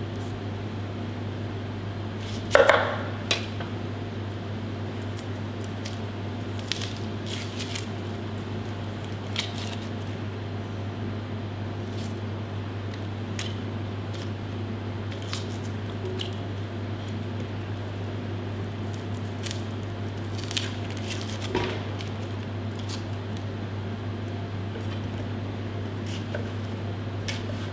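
Knife cutting a white onion on a plastic cutting board: scattered short knocks of the blade and onion on the board, the loudest about two and a half seconds in and another about twenty-one seconds in. A steady low hum runs underneath.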